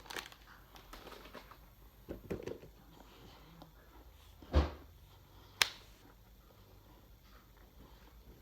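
Handling noises: a few soft knocks, then a loud dull thump about halfway through and a sharp click a second later.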